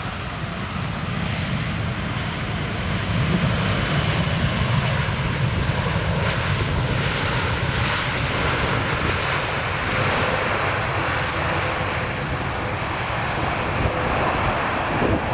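Jet engines of a KLM Boeing 787 airliner landing, a steady loud rumble with a broad hiss that swells slightly about three seconds in.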